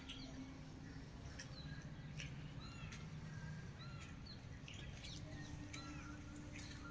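Small birds chirping in short, repeated calls over a low steady hum, with a few faint clicks.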